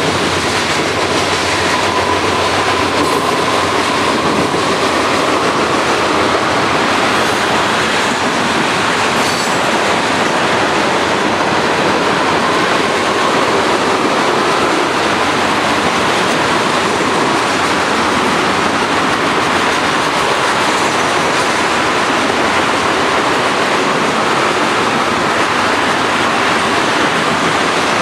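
Freight train of covered hoppers and tank cars rolling past at speed: steady loud rolling noise of steel wheels on rail, with a faint wavering wheel squeal that comes and goes.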